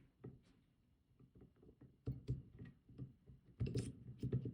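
Disk detainer pick being slid into the keyway of an Anchor Lås 800-3 padlock: small metallic clicks, taps and scrapes. A few faint ticks come first, then louder clusters of knocks about two seconds in and again near the end.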